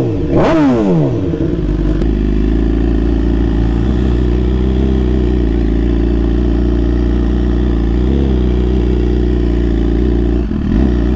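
Sport bike engine whose revs drop away in the first second or so, then run steady and low as the bike rolls slowly, with a brief small rise in revs about three-quarters of the way through.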